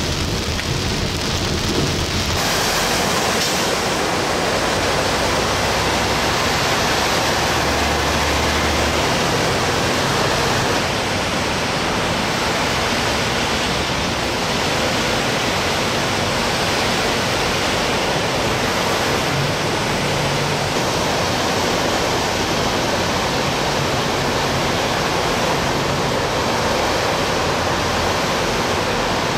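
Heavy rain and hail beating on a vehicle, which about two seconds in gives way to heavy rain pouring steadily outdoors, a dense even hiss.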